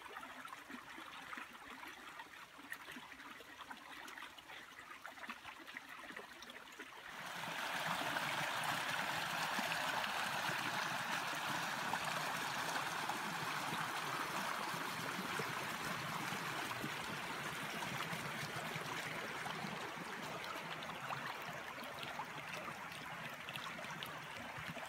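Small stream trickling over rocks between snowbanks, faint at first and then clearly louder and fuller from about seven seconds in.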